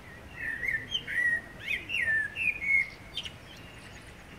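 Blackbird singing one phrase of fluty, warbling notes, with a brief high twitter near the end of the phrase.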